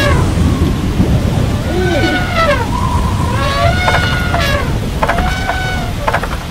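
Steady heavy rain with low rumbling thunder. Over it, a pitched call that rises and falls, each about a second long, is heard three times.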